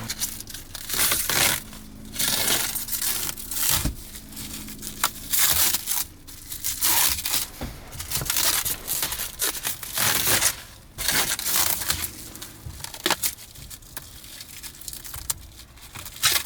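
Protective plastic film being peeled off a new steering wheel and crumpled: irregular crinkling and tearing rustles, with a few sharp crackles.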